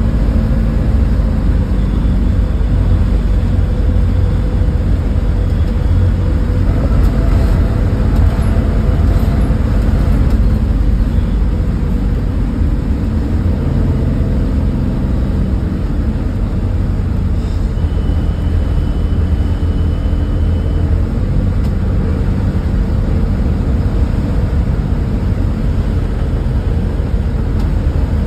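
School bus cruising at highway speed, heard from the driver's seat: a steady diesel engine drone under a constant low road and tyre rumble.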